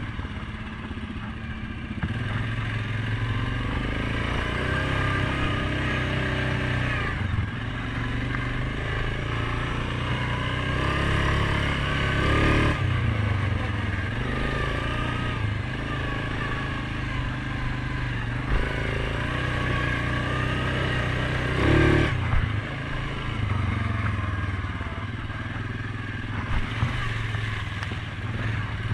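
Suzuki KingQuad 750 ATV's single-cylinder engine running as it rides a dirt trail, the revs rising and falling with the throttle. A few short knocks and rattles come from the machine going over bumps.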